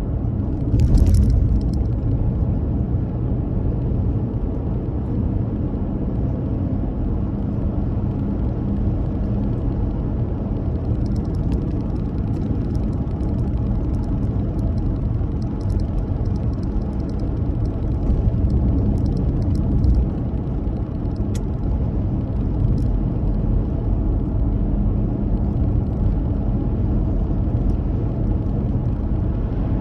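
Car driving on the road: steady low rumble of tyres and engine, with a brief louder bump about a second in.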